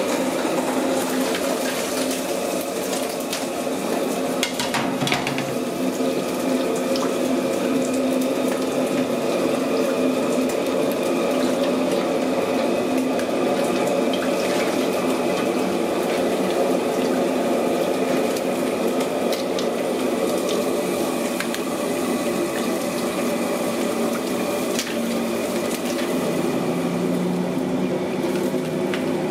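A cooked mud crab being rinsed and pulled apart by hand in a basin of water, with small splashes and scattered sharp shell clicks, over a steady kitchen hum.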